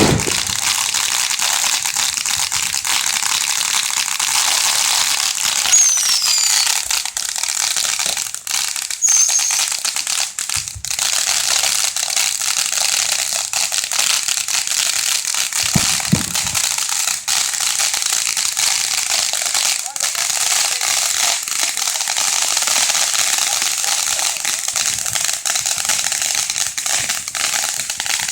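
Fireworks going off without pause: dense crackling throughout, with a few dull booms near the start and about 11 and 16 seconds in, and brief whistles around 6 and 9 seconds in.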